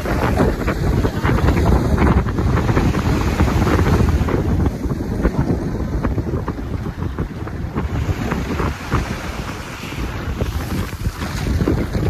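Wind buffeting the microphone in a heavy, gusting low rumble, with surf washing on the shore behind it.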